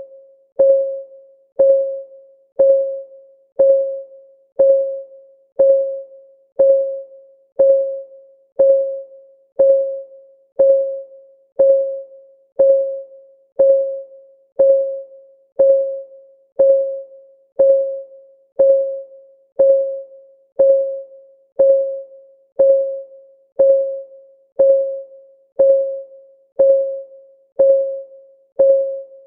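Countdown timer's ticking sound: one electronic tick a second, each a short mid-pitched tone that dies away quickly, keeping a steady pace.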